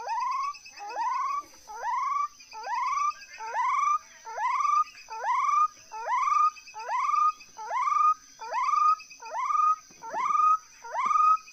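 An animal calling over and over, each call a short upward-sliding whoop, about one every three-quarters of a second, over a steady high insect trill.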